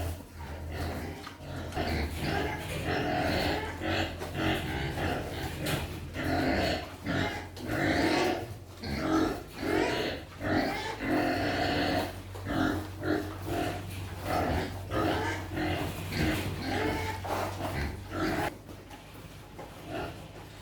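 Farm animals calling over and over in short, rapid cries, several a second, loudest in the middle stretch, over a steady low hum.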